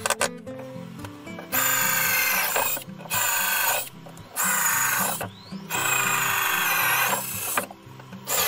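Cordless drill run in four short bursts, each with a whine that climbs as the motor spins up, as it bores into a thin wooden strip on a wooden board. Background music with low notes plays throughout.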